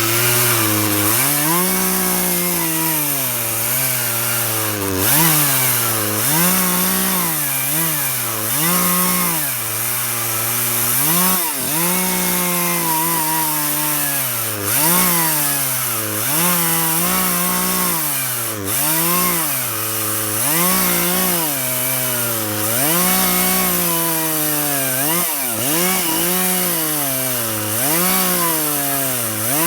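Poulan two-stroke chainsaw ripping lengthwise along a log, guided by a Beam Machine attachment. Its engine pitch dips and recovers every second or two as the saw bogs under load in the cut.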